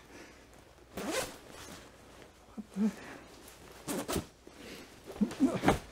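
Zipper of a padded winter parka being worked by hand in short pulls: one about a second in, another around four seconds, and a quick cluster near the end.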